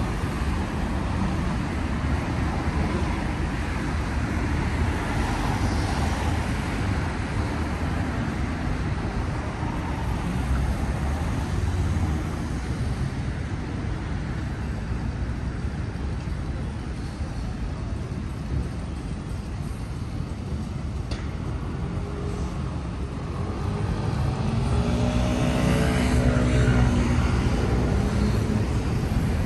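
City street traffic: a steady rumble of road vehicles, with one engine growing louder and passing close near the end.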